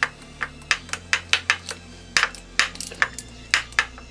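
About a dozen sharp metallic clicks, unevenly spaced at two or three a second, from a socket tool working the bolts of a cam chain tensioner on an engine. Quiet background music with a low bass runs underneath.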